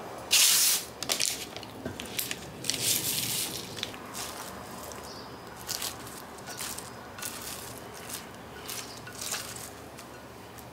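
Wooden chopsticks tossing crisp roasted dried anchovies through sticky gochujang sauce in a glass bowl: irregular wet squishing and crackling scrapes, loudest about half a second in.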